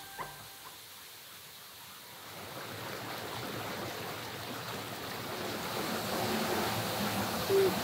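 Water running over rocks in a small stream: a steady rushing that swells after the first couple of seconds. A short tone sounds near the end.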